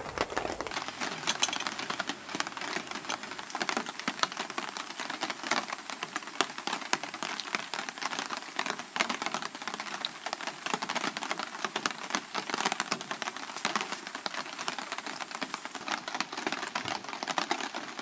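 Rain pattering steadily, a dense irregular ticking of drops.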